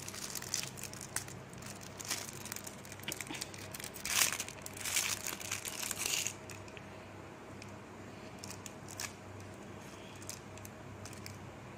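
Clear plastic packaging crinkling and crackling as hands work a small tripod part out of its wrapper. It is busiest in the first half with a couple of louder crackles, then thins to a few faint crackles.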